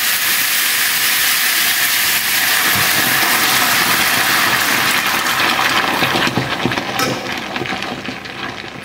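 Coconut milk sizzling and boiling hard in a hot frying pan over a gas flame turned up too high: a loud, steady hiss that thins into crackling and popping bubbles over the last few seconds.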